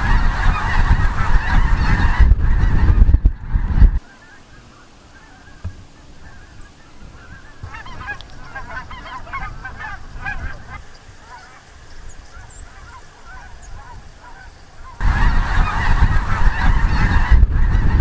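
A flock of Canada geese honking, many overlapping calls. The honking is loud with a heavy rumble of wind on the microphone for the first four seconds and the last three, and fainter and more distant in between, thickest about halfway through.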